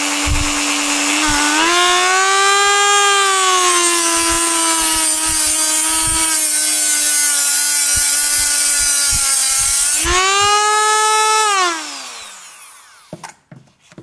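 Dremel rotary multitool with a cut-off disc grinding through a steel construction nail: a steady high motor whine with a grinding hiss. About ten seconds in the whine rises, then it falls away in pitch as the tool is switched off and spins down.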